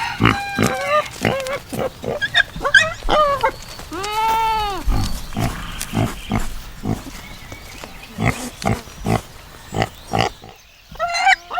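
Pigs grunting and squealing in a quick run of short calls, with one longer squeal about four seconds in that rises and then falls.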